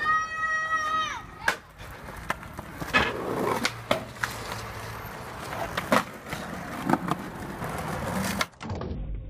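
Skateboarding on concrete ledges: boards popping and landing with sharp clacks, trucks grinding along the ledge edges, and wheels rolling over paving in between. In the first second a high squealing tone holds, then slides down in pitch as it stops.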